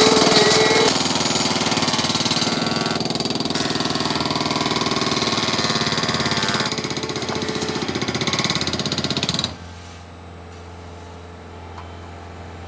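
Hydraulic breaker hammer on a Bobcat skid-steer loader pounding a concrete slab in rapid, continuous blows. It stops suddenly about nine and a half seconds in, leaving a quieter steady rumble.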